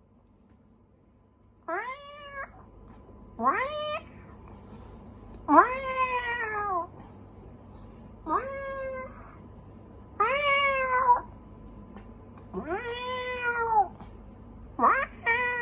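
A man imitating a cat's meow, with seven drawn-out calls about two seconds apart, each rising and then falling in pitch.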